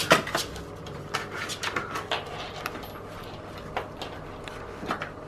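A small terrier's claws clicking and scrabbling on a laminate wood floor as it plays with a toy, with irregular light taps and knocks throughout and a sharper knock right at the start.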